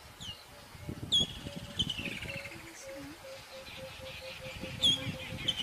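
Bird calls: a sharp downward-slurred whistle, then a rapid run of notes falling in pitch, heard twice, about a second in and again near the end. Irregular low knocks and rustling and a faint steady hum lie underneath.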